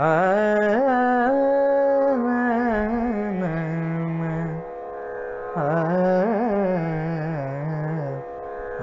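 Carnatic music in raga Abheri: an ornamented melodic line with gliding, oscillating notes over a steady drone. It comes in two phrases, the first running about four and a half seconds and the second starting after a pause of about a second.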